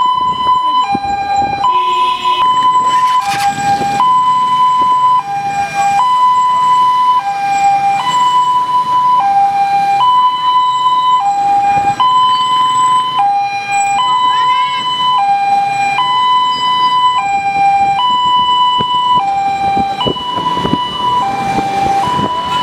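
Two-tone hi-lo siren alternating steadily between a higher and a lower note, changing about once a second, over the low rumble of road traffic.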